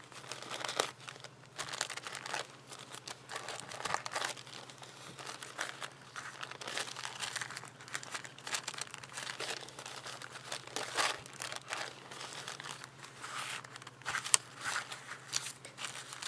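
Thin paper coffee filter crinkling and rustling in irregular bursts as it is handled and folded, with one sharp click near the end.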